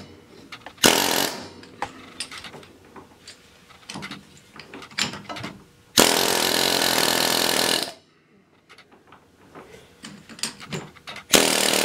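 Pneumatic air hammer with a rounded bit hammering the rear drive shaft of an ATV, working it back so its pin holes line up. It fires in a short burst about a second in, runs steadily for about two seconds midway, and starts again near the end, with small knocks of metal on metal in between.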